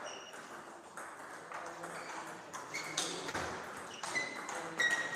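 Table tennis balls knocking on tables and bats in a hall: an irregular string of short, ringing pock sounds.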